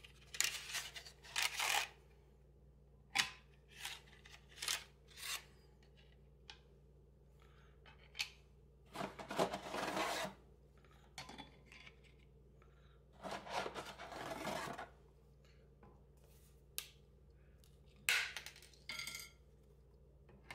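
Stiff, dry no-boil lasagna noodles being set into a stoneware baking dish and cut to fit, in a series of short scrapes and clicks, with a few longer scraping stretches.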